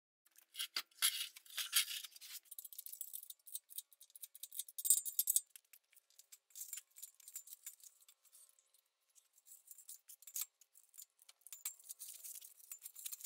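Faint, scattered metallic clinks and jangles from an engine hoist's chain being handled, with a slightly louder cluster about a second in and another about five seconds in.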